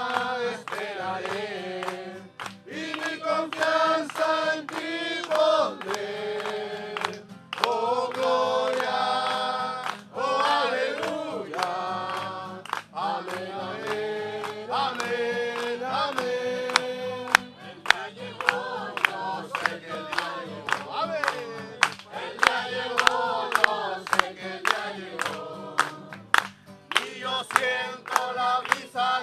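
A congregation of men and women singing a Spanish worship chorus together, with a repeated "amén" near the middle. Handclaps keep time with the singing, more of them in the second half.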